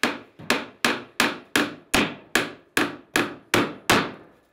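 Hammer striking repeatedly in a steady rhythm, about eleven blows at roughly two and a half a second, each ringing briefly: carpentry on the bell tower's new floor.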